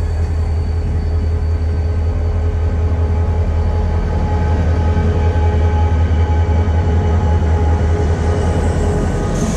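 Towed Alvia S730 train rolling past close by on the track: a steady low rumble with a couple of steady tones above it, growing slightly louder about halfway through.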